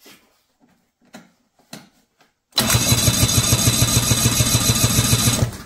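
Electric starter cranking a 1992 Ski-Doo Mach 1's two-stroke engine with a compression gauge fitted for a compression test. After a few faint clicks, the engine turns over with a fast, even pulsing for about three seconds, then stops.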